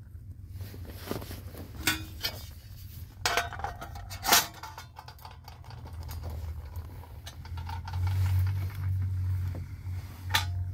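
Thin sheet-metal tin and its perforated metal grille clinking and knocking as they are handled and set down, a handful of sharp knocks, the loudest about four seconds in and one more near the end. A low steady hum runs underneath and swells after about eight seconds.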